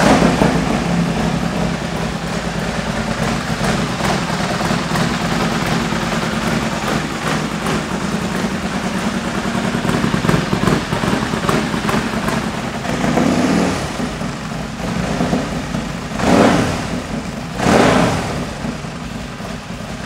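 Harley-Davidson Milwaukee-Eight V-twin, built out to a 143 cubic inch MHP Dominator, idling steadily through a Thunderheader 2-into-1 exhaust. A small throttle blip comes about thirteen seconds in, then two sharp revs a second and a half apart near the end.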